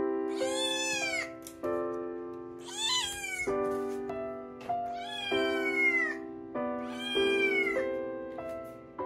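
Munchkin kitten meowing four times, each high-pitched call lasting about a second and rising then falling in pitch, over background music.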